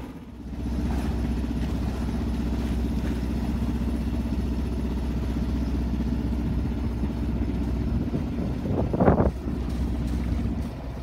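Alberg 30 sailboat's inboard auxiliary engine running steadily under way, a low even drone, with a brief louder rush of wind or water about nine seconds in.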